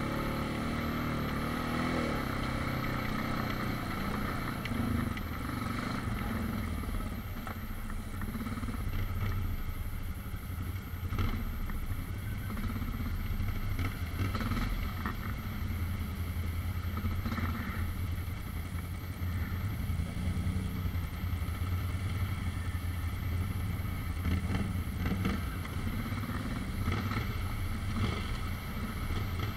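ATV engine running at low trail speed, a steady low drone, with scattered knocks and rattles from the machine bouncing over ruts and mud.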